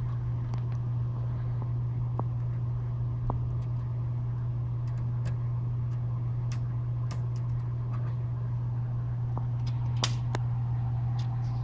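Steady low hum, with scattered small clicks and taps as the joystick's metal parts are handled and fitted; the sharpest click comes near the end.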